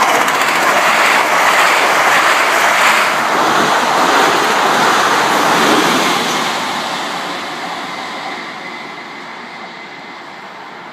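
Double-deck Transilien commuter train of VB2N coaches passing close by on electrified track: steady rolling wheel-on-rail noise, loud for the first six seconds, then fading as the train runs away.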